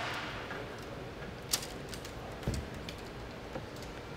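Scattered clicks and knocks as a flat-screen TV's back chassis is lifted off the display panel, with a sharp click about one and a half seconds in and a duller knock a second later.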